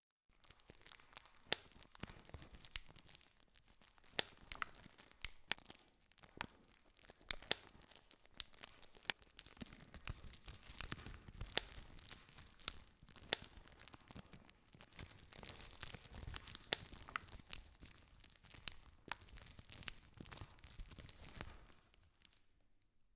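Campfire crackling: many sharp, irregular pops and snaps over a steady hiss of burning wood, fading out near the end.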